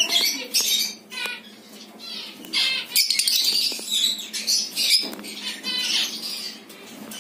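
A flock of lovebirds chattering with shrill, high-pitched squawks and chirps in overlapping bursts, with a short lull about a second in before the calls pick up again.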